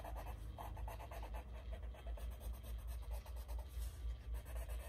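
Pencil scratching in quick back-and-forth strokes across cardstock laid over a stretched canvas, pressed firmly to transfer the graphite from the template's back onto the canvas.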